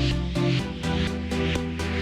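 Background music with a steady electronic beat, about four beats a second, over a changing bass line.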